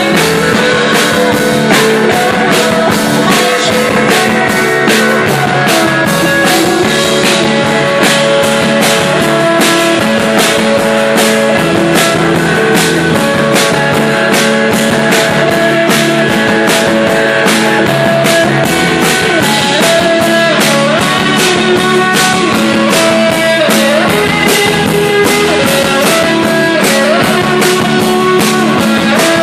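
Live pop-rock band playing: electric guitar, keyboard and a drum kit keeping a steady beat.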